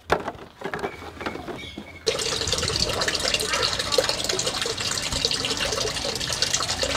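A few faint knocks and rustles, then, from about two seconds in, a sudden, steady rush of running water splashing down.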